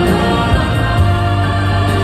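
A hymn sung by many voices together, with steady instrumental accompaniment and a strong sustained bass.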